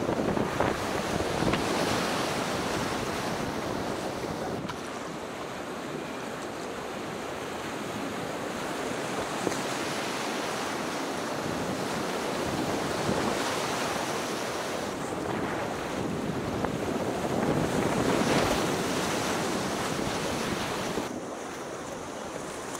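Whitewater rapids rushing and splashing around a kayak's bow, with wind noise on the microphone. The water gets quieter for a moment near the end as the boat passes through calmer water.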